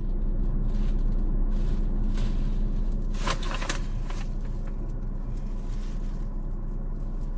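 Steady low hum of a car idling, heard from inside the cabin, with a short rustle about three seconds in.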